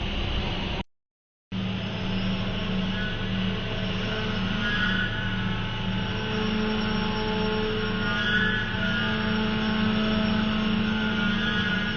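CNC router running: a steady machine hum with higher tones that come and go and shift in pitch as the motors work. The sound cuts out for about half a second a second in, then resumes.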